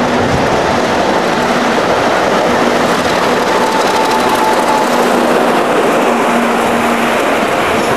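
Class 50 diesel locomotive passing close at speed, its coaches following: a steady, loud rush of engine and wheel noise.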